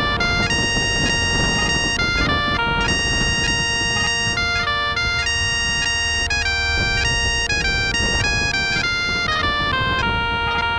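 Background music: a bagpipe tune, with a chanter melody of quickly changing notes over steady held drones.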